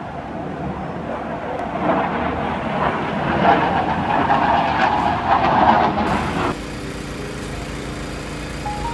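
Heavy vehicle engine and road noise that swells over several seconds and peaks before stopping abruptly. A small portable inverter generator then runs with a steady hum.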